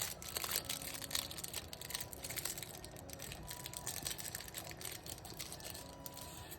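Plastic card-pack wrapping crinkling and crackling as a sealed Pokémon trading-card pack is opened and handled, loudest at the start.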